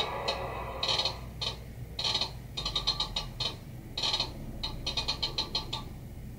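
Sound-decoder recording of a Class 59's EMD diesel engine playing through a model locomotive's small speaker. The engine drone dies away about a second in. A series of short hisses follows in quick, irregular succession.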